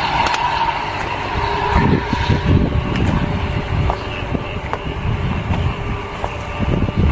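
Traffic on a nearby road: a steady rumble of passing vehicles, with footsteps on the railway track's ballast.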